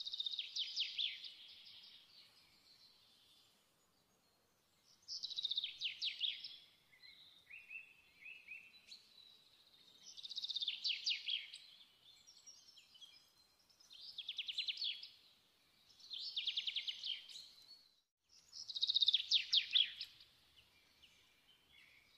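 A songbird singing: short phrases of rapid high trills and chirps, about six of them, each a second or two long and a few seconds apart.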